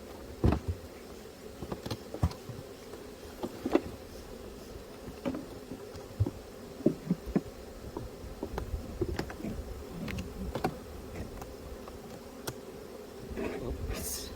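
Honeybees buzzing in a steady hum, with scattered sharp clicks and knocks throughout.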